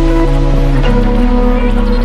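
Background music: slow, sustained synth chords that change every half second or so.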